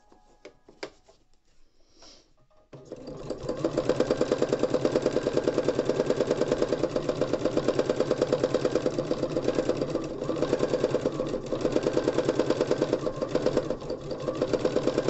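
Domestic sewing machine doing free-motion stitching with the feed dogs lowered. After a few faint clicks it starts about three seconds in and runs at a fast, steady stitching rhythm, easing off briefly twice near the end.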